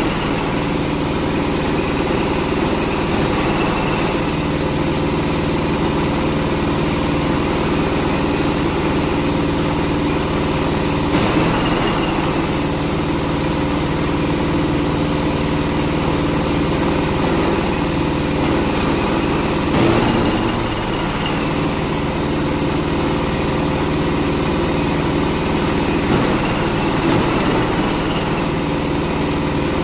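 Engine-driven cocopeat grinding machine running steadily, with a few brief surges in loudness partway through.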